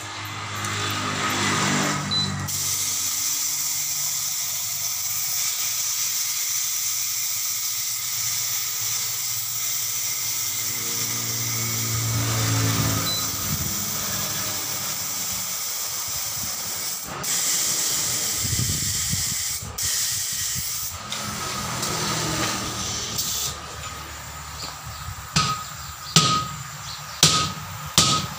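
Compressed air hissing steadily from an air hose held at a truck wheel's steel rim. Near the end come several sharp hammer blows on the rim, each ringing briefly.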